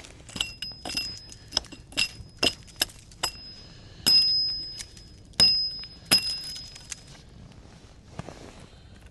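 A small axe chopping at hawthorn branches: about a dozen sharp strokes at an uneven pace, each followed by a high metallic ring from the axe head. The strokes stop about seven seconds in.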